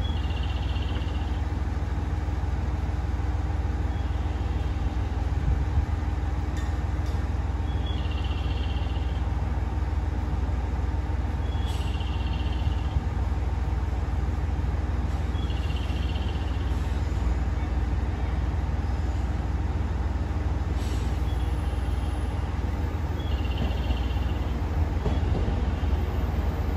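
Station platform ambience: a steady low rumble, with a short high chirping call repeating about every four seconds.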